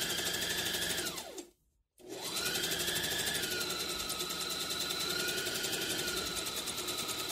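Brother ST371HD heavy-duty sewing machine stitching through thin t-shirt fabric at speed. Its motor whine rises as it gets up to speed, then slows and stops about a second and a half in. After a short break it speeds up again and runs steadily to the end, with a fast, even needle rhythm, sounding really smooth and without stutter.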